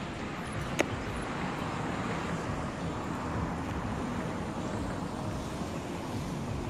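Steady rushing outdoor background noise, with a single sharp click about a second in.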